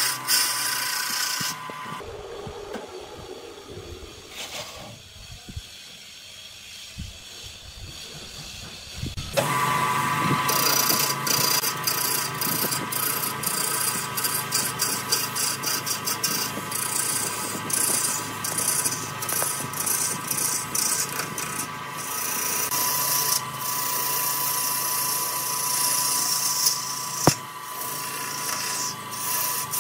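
Wood lathe spinning a laminated wood blank while a turning tool cuts it, a hissing, scraping cut of shavings peeling off with a steady whine from the running lathe. The cutting is quieter for several seconds near the start, then comes back louder about nine seconds in.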